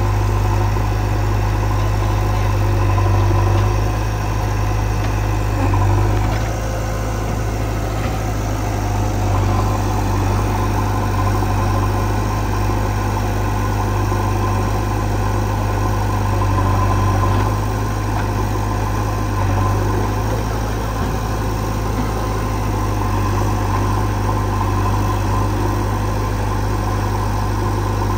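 Heavy diesel engine running steadily as a deep hum, with slight swells in level now and then.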